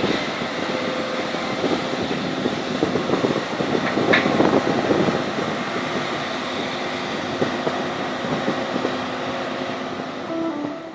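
Heavy excavation machinery running steadily, with a brief high squeal about four seconds in.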